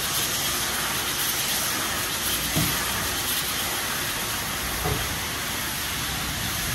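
Automatic car wash running: a steady hiss of spraying water, with two short low thumps about two and a half and five seconds in.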